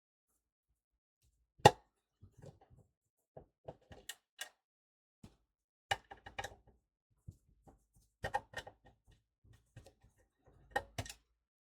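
Scattered knocks and clicks of a small electric soldering hot plate being handled while its bottom cover is taken off, with one sharp knock about two seconds in.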